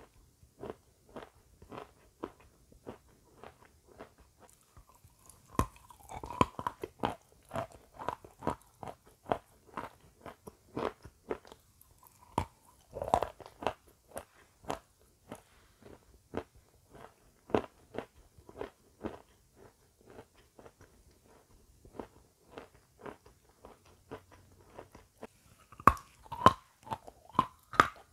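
Close-miked crunchy chewing of a crisp snack, about two chews a second, with louder crunching bites about six seconds in, around thirteen seconds, and again near the end.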